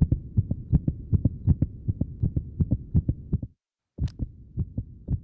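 A heartbeat heard through a stethoscope: quick, regular low thumps that stop for a moment about three and a half seconds in, then start again.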